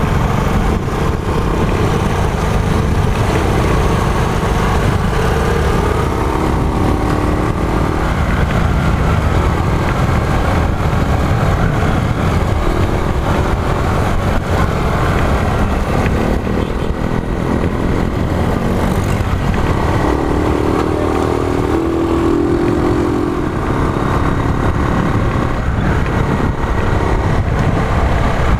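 A Honda CG 125 motorcycle's single-cylinder four-stroke engine running on the move, its note rising and falling with the throttle.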